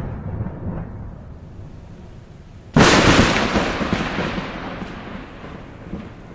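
Close thunderclap: after a low rumble of thunder, a sudden loud crack nearly three seconds in that rumbles away over the next few seconds, with heavy rain underneath.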